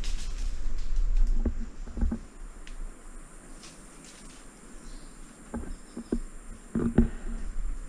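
Scattered knocks and scuffs of footsteps and handling of the camera pole, the loudest about seven seconds in, over a steady high insect hum. A low rumble on the microphone fills the first two seconds.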